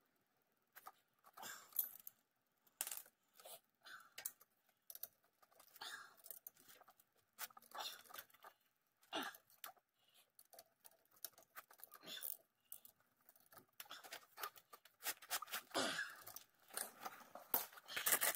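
Irregular light clicks, knocks and scrapes of metal parts being handled as a front brake caliper is worked back onto its bracket over new pads and rotor, with short quiet gaps between them.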